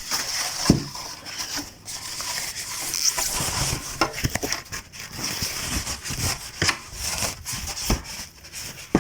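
Packaging being handled and unwrapped: continuous rustling and crinkling with many small knocks and taps as parts are pulled out of a box.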